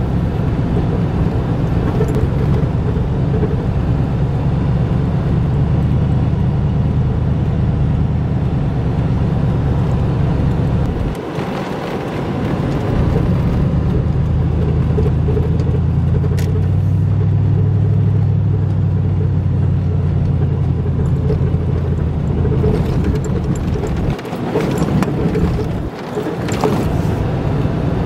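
Car engine and tyre rumble heard from inside the cabin while driving on a snow-packed ice road over a frozen lake. The low rumble drops away briefly about eleven seconds in and twice near the end.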